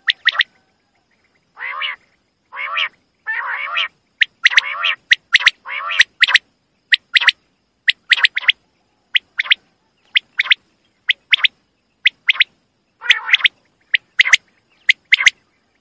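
Common quail calling: sharp, short, high notes in quick groups of two or three, repeated throughout, mixed with several longer, lower, harsher calls in the first half and once more near the end. Dead silence fills the gaps between calls.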